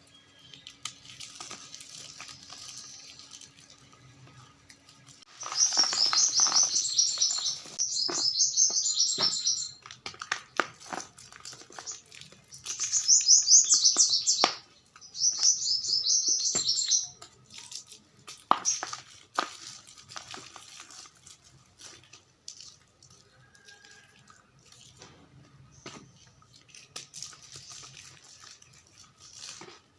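Gym chalk crumbling and crunching as it is squeezed by hand, a fine dry crackle. It comes in four loud bursts of about two seconds each, with fainter crumbling and ticks between them.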